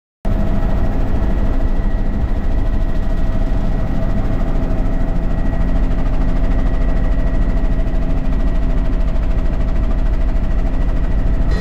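A loud, steady engine drone with a heavy low end and a few steady tones, cutting in suddenly after a moment of silence.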